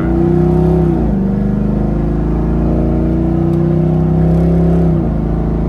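Chevrolet Camaro's engine accelerating, heard inside the cabin: the engine note climbs, drops at a gear change about a second in, climbs steadily again, then drops at another shift about five seconds in, over a steady low road rumble.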